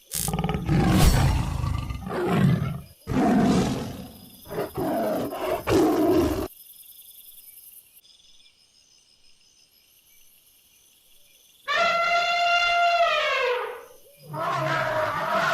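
Animal calls: a run of loud, rough roar-like calls over the first six seconds, then after a pause a long pitched call that drops in pitch at its end, followed by another pitched call near the end.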